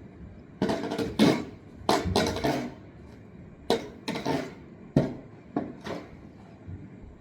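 Rock salt being scattered onto the ground in repeated tosses: about eight short rattling swishes, each starting sharply and fading quickly.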